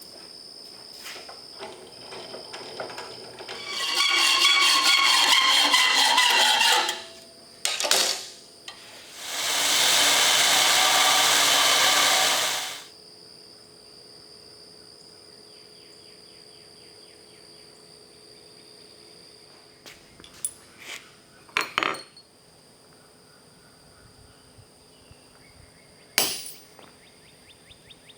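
Metalworking on a forged mild-steel hook: two loud stretches of harsh, noisy tool work of about three seconds each, the first with metallic ringing in it, then a few sharp metal knocks over a steady high hum.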